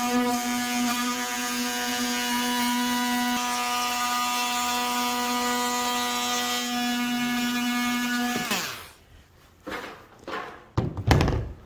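Milwaukee cordless oscillating multi-tool running steadily at high speed, its blade buzzing as it cuts along a traced line through the edge of an RV roof. It stops about two thirds of the way in, followed by a few knocks, the loudest a sharp knock near the end.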